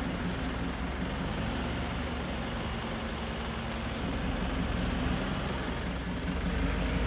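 Engine of a Mahindra safari jeep running steadily, heard from on board the open vehicle.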